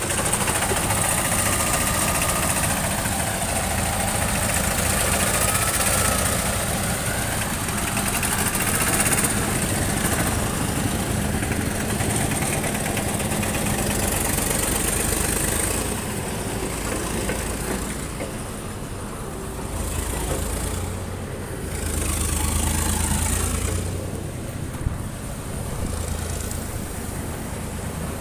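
Engines of vintage road-construction machinery running, with a steady low drone that is louder for the first half and eases off after about 16 seconds.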